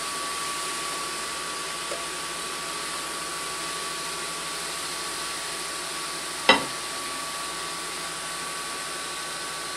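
Smokeless table grill's built-in extraction fans running with a steady whoosh and a thin, even whine. A single sharp click about six and a half seconds in.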